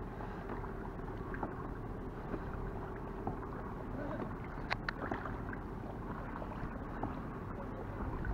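Water lapping and sloshing against the hull of a Hobie Mirage i11S inflatable pedal kayak under way: a steady wash with scattered small clicks and a sharper splash about five seconds in.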